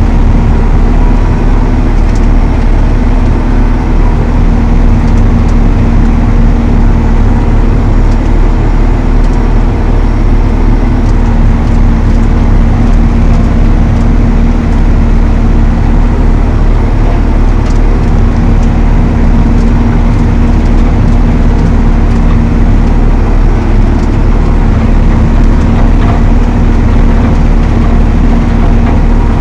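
Valtra T214 tractor's six-cylinder diesel running steadily under load, driving the Elho Tornado chain mower, with a constant drone and hum.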